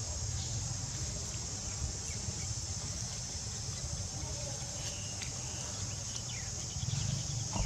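Forest ambience: a steady high-pitched insect drone over a low rumble, with a few faint short chirps about midway.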